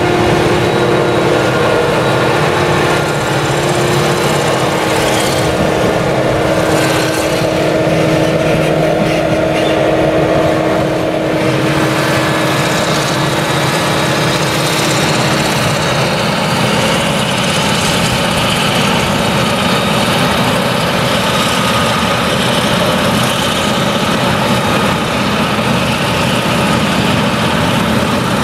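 Claas Jaguar 970 forage harvester with its MAN V8 engine running under load while chopping sorghum, a loud, steady machine drone, joined by a tractor running close alongside. One steady hum in the mix drops out about halfway through.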